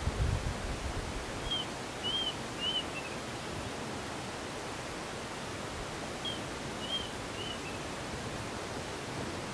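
Steady outdoor hiss of rural open-air ambience, with a small bird calling twice, each call a quick run of four short chirps.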